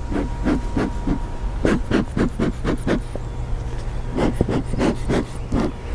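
Bee smoker's bellows pumped again and again, a quick run of short puffing whooshes, over a steady low hum.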